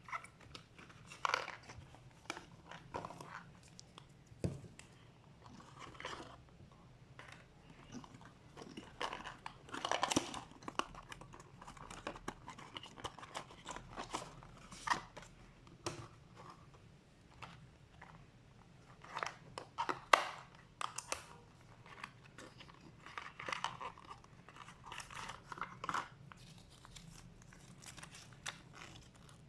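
Small box and plastic packaging being opened and handled close to the microphone: crinkling, tearing and rustling with scattered light clicks and taps, louder in a few bursts.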